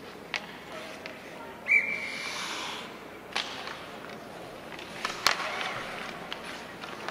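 Ice hockey play: a few sharp clacks of sticks on the puck and ice over background voices. About two seconds in there is a loud, sudden high-pitched note held for about a second.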